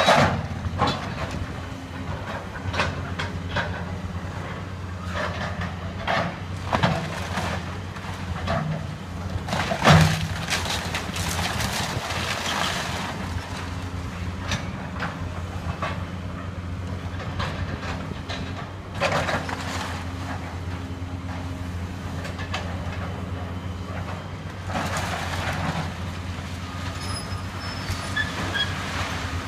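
Hydraulic excavator's diesel engine running steadily as the machine tears down a wood-frame house. Timber cracks and debris crashes come at irregular intervals, with a sharp crash about ten seconds in.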